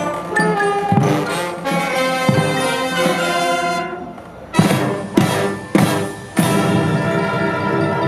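Marching band of brass, saxophones, sousaphones and marching drums playing. Held brass chords with drum strokes dip briefly about four seconds in, then four accented full-band hits lead into a loud sustained chord.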